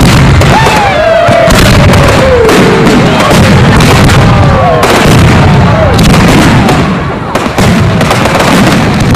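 Fireworks display: a dense, continuous barrage of bangs and crackling shell bursts, with gliding whistle-like tones sliding in pitch over it. The bangs ease briefly about three-quarters of the way through, then resume.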